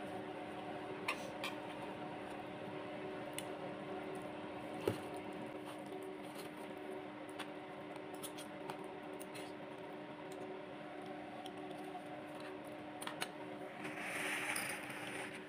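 A steady low hum, like a running appliance, with scattered small clicks and taps from hands handling a small object or packaging, and a short rustle near the end.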